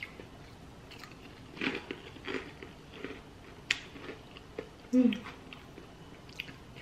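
A person eating bakso meatball soup: chewing and mouth noises in short, scattered spurts, with one sharp click a little before four seconds in.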